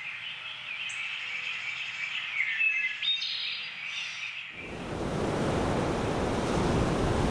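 Birds chirping and calling, several short chirps and gliding whistles over a quiet background. About four and a half seconds in, the birds cut off abruptly and a steady, louder rushing noise takes over.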